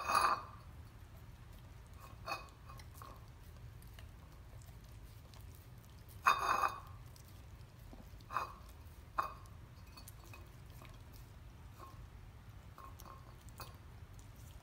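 German Shepherd licking and nibbling at a raw, still partially frozen New York steak on a plate: a few short, wet mouth sounds, the loudest about six seconds in, over a steady low hum.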